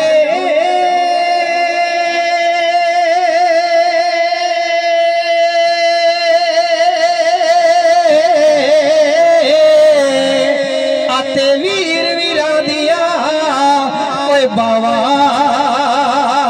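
A man singing Punjabi Sufi verse solo into a microphone, amplified through a loudspeaker. He holds one long wavering note for about ten seconds, then breaks into ornamented runs up and down.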